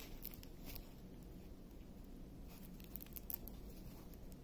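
Faint crinkling and light ticks of a plastic-covered diamond-painting canvas being handled, with a few slightly louder ticks about three seconds in.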